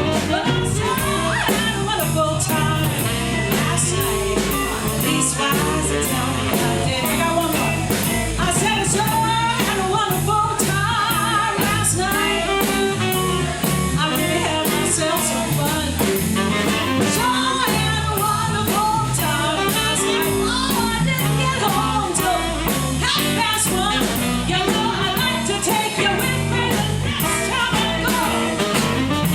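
Live band playing a song with a singer, over a steady beat of drums and cymbals.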